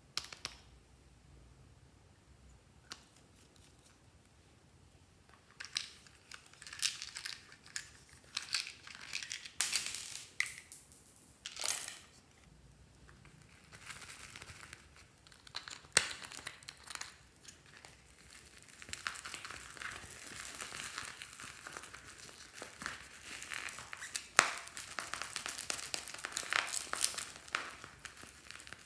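Crinkling and crackling of a thin clear plastic tub of tiny sprinkles being handled, with scattered sharp clicks. From about two-thirds of the way in there is a longer, denser crackling stretch as the sprinkles are tipped out of the tub.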